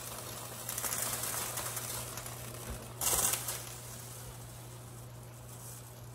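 Boiling water bubbling in a blanching pot and spilling back through the holes of its perforated basket as the basket is lifted by its handles, with a short louder splash or clank about three seconds in.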